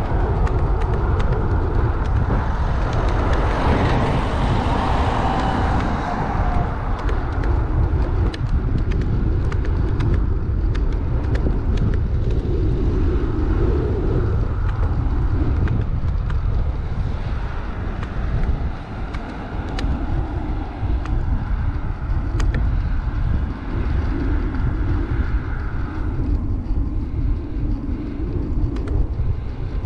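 Steady road and traffic noise heard from a moving bike, with wind rumbling on the microphone. A louder sound swells and fades about two to six seconds in.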